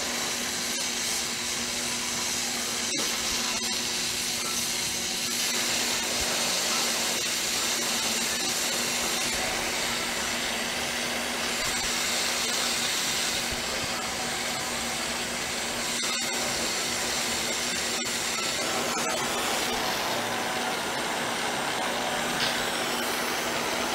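Two glassblowing torch flames burning with a steady hiss while borosilicate glass is heated, over a steady low hum.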